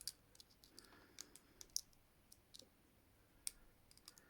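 Faint, irregular metallic clicks of a bent paperclip being worked in the keyway of ASP Model 100 handcuffs to pick the lock. The sharpest clicks come about a second and a half in and again about three and a half seconds in.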